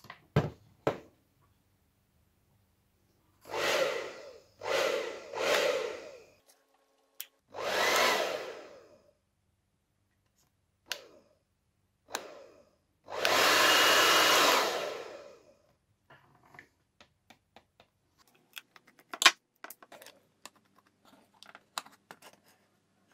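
Hair dryer blowing in short runs of one to two seconds, switched on and off about five times, each run dying away as the fan spins down; the dryer's position switch is faulty. Near the end come a string of small clicks and taps.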